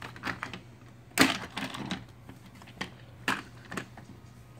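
Plastic toy trains clattering against each other and the plastic track as a hand pushes them, a run of irregular sharp clicks and knocks, the loudest about a second in.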